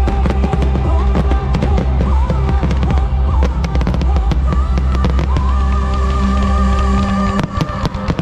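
Music with held notes and a heavy bass plays over aerial fireworks bursting in sharp reports. The bass drops out about seven and a half seconds in, leaving a quick run of firework bangs more exposed.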